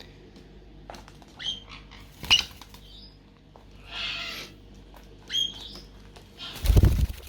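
Black-headed caique chicks giving a few short, high chirps. A loud flurry of wing-flapping comes near the end.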